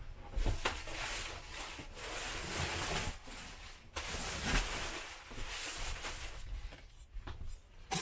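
A plastic-wrapped mattress being handled and slid out across a folded-flat sofa. The plastic crinkles and rustles in two long stretches, with a few dull thumps.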